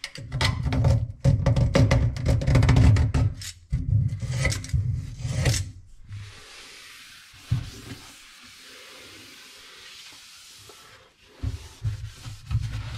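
Gloved finger rubbing and scraping inside the drain body under a bathroom sink, close up, in dense loud bursts for about six seconds. A steady hiss follows for several seconds, with more rubbing near the end.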